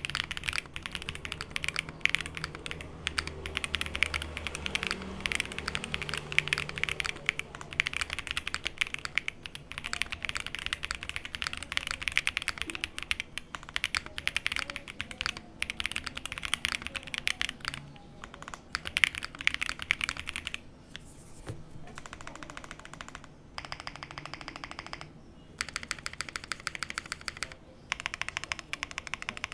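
Mechanical keyboard typing: an Ark68 with stock Aflion Inks 55g tactile switches on an FR4 plate under GMK Posh keycaps, keys clacking in quick irregular runs. From about 21 seconds in the typing comes in short bursts of fast, even keystrokes separated by brief pauses.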